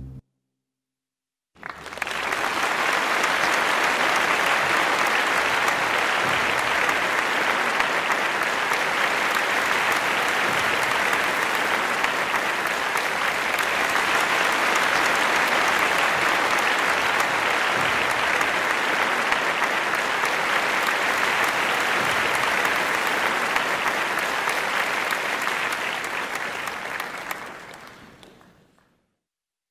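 Audience applauding at the end of a ballet pas de deux: many hands clapping in a steady, dense patter. It starts after a second and a half of silence and fades out near the end.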